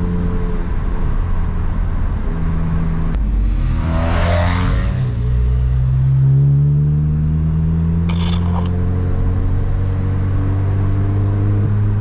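A Volkswagen GTI's turbocharged four-cylinder engine driving hard on a winding road. Its pitch dips about three seconds in and then rises as it accelerates, with a brief rush of hissing noise around four seconds in.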